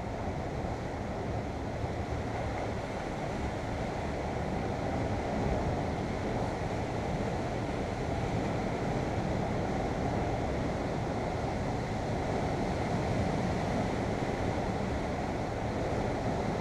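Sea waves washing against shore rocks, with wind on the microphone; a steady rush.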